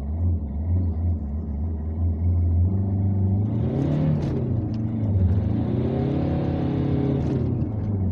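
Car engine heard from inside the cabin, running low and steady, then revved up twice, its pitch rising and falling each time. A hiss of wet-road noise runs under the revving.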